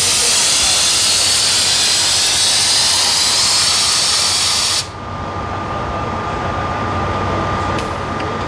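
Stopped motor coach letting off a long hiss of compressed air from its air brake system for about five seconds, cutting off suddenly. After it the coach's diesel engine idles with a steady low rumble and a thin steady high tone.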